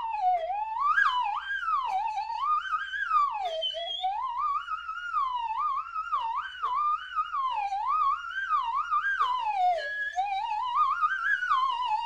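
Eerie whistle tone sliding continuously up and down in pitch, wavering and swooping without a break: a strange, ghost-story-style sound effect.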